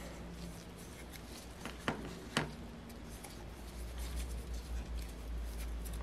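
Quiet handling noises as gloved fingers wipe lubricant onto an aluminium Saito engine crankcase over a plastic tub: two light clicks about two seconds in, then faint rubbing, over a low steady hum.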